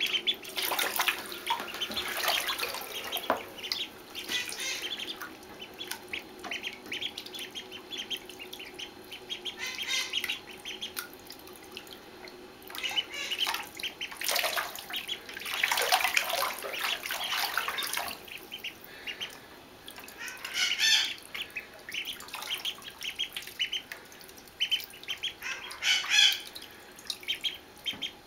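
A brood of ducklings peeping continually as they swim in a bathtub, with louder stretches of water splashing now and then.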